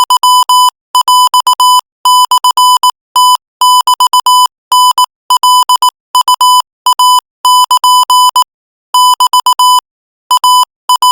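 Morse code sent as a beeping tone at 22 words per minute: short and long beeps run together into letters, with slightly longer pauses between groups.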